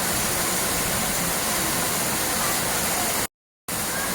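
Steady rushing of a waterfall, an even hiss of water, with a brief dead silence near the end where the sound cuts out.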